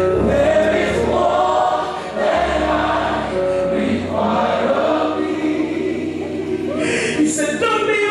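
Gospel music: a choir singing over sustained bass notes.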